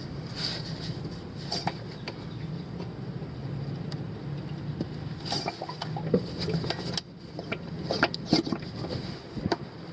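Scattered light clicks and crackles of a plastic fluid bottle being handled and squeezed while transfer case fluid is poured into the fill hole, over a steady low hum.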